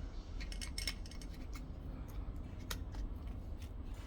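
Light sharp plastic clicks and small scrapes, a quick cluster in the first second and a few single clicks later, as a flat screwdriver or pry tool is rocked left and right to unsnap the plastic clips of a smart door lock's cover.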